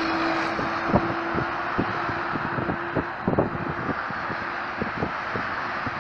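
Steady road traffic noise from cars and lorries on a multi-lane highway. A steady drone holds for about three seconds and then stops, and short knocks are scattered throughout.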